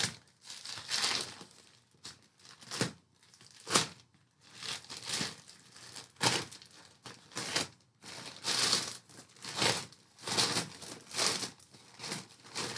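A large postal bag being handled and opened, its packaging crinkling and rustling in irregular bursts, with a few sharper, shorter rustles.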